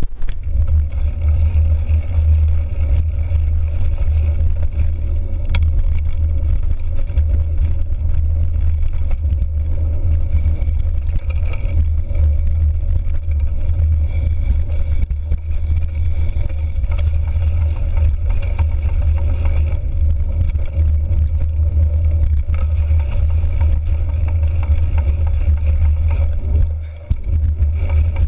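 Mountain bike rolling along a dirt trail, heard from a handlebar-mounted camera: a steady low rumble of wind on the microphone and tyre noise. It eases briefly about a second before the end.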